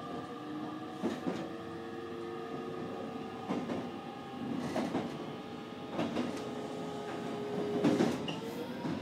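Electric train running, heard from inside the front car: a steady whine with the wheels clicking over rail joints, mostly in pairs, every second or two.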